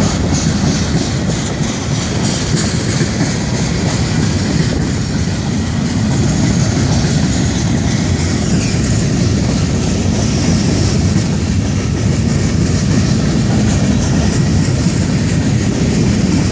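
Freight cars of a Florida East Coast Railway train rolling past: a steady, loud rumble of steel wheels on rail.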